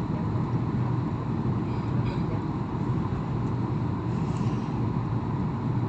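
Steady cabin noise of an airliner in flight, the even drone of engines and airflow heard from inside the passenger cabin.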